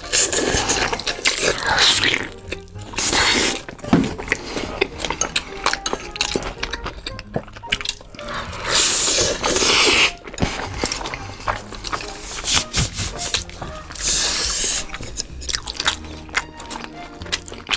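Close-miked eating sounds: noodles slurped up in several long hissing pulls of about a second each, with wet chewing and lip-smacking clicks from bites of braised pork in between.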